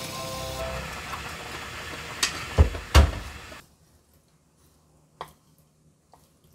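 Food cooking on the stove: a steady sizzling hiss with three clunks of a utensil against the cookware about two to three seconds in. The sound cuts off abruptly partway through, leaving near silence with a couple of faint clicks.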